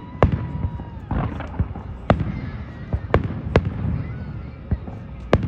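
Fireworks display: aerial shells bursting with sharp, irregular bangs, about five loud ones, with a patch of crackling about a second in.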